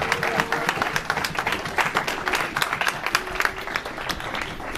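Congregation applauding: many hands clapping irregularly, thinning out a little near the end.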